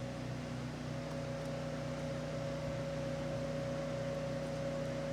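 Electric shop fan running steadily: an even whirring hum with a constant whine over it.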